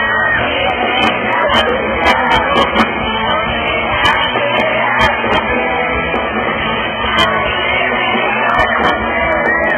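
Live rock band playing with singing over it, heard loud from close to the stage amid the crowd.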